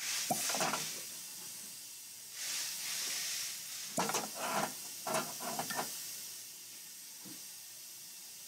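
Valve vacuum tester's cup pressed onto a cylinder head's ports in turn, with air hissing and sucking in short bursts as the cup seals and lets go, and a longer hiss a little past two seconds in. The valves are holding vacuum and sealing well.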